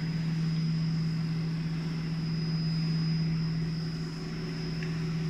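Small high-speed CNC milling machine running. It gives a steady low hum with a fainter, steady high-pitched whine above it.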